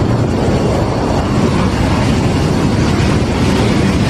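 Loud, steady jet-engine roar, a sound effect for a toy fighter jet taking off.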